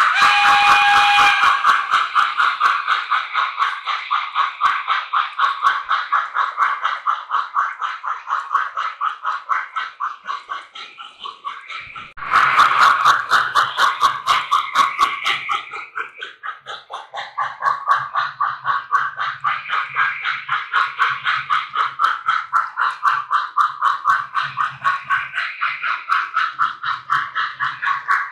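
Model steam locomotive running on the layout: a fast, even pulsing chuff that fades twice and swells again, jumping louder about twelve seconds in with a low hum joining it.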